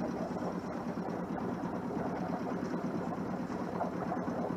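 Sailboat's engine running steadily.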